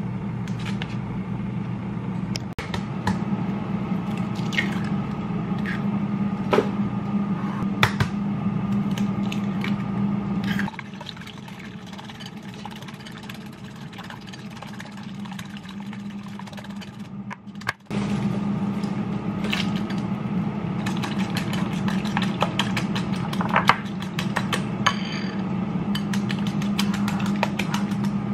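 Eggs being beaten in a ceramic bowl with a fork and a wire whisk: repeated light clinks and taps of metal against the bowl over a steady low hum.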